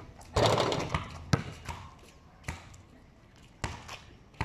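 A basketball bouncing on a concrete court: four or five separate sharp thuds at uneven intervals, after a brief loud rush of noise about half a second in.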